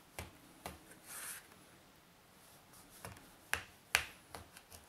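Kitchen knife slicing through a soft roll and knocking on a plastic cutting board: sharp clicks as the blade meets the board, two in the first second and a quick run of them in the last two seconds, the loudest about four seconds in, with a short soft scrape about a second in.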